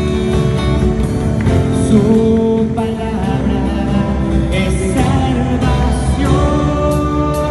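Live Christian worship band playing: a man singing over acoustic guitar, electric guitar, keyboard and a drum kit with cymbals.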